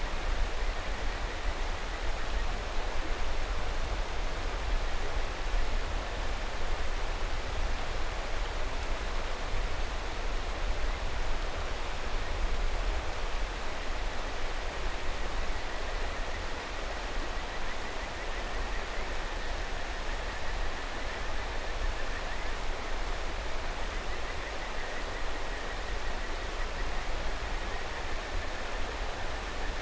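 Mountain river rushing steadily, with kajika frogs (Buergeria buergeri) calling faintly above it as a thin high chorus that grows a little busier in the second half.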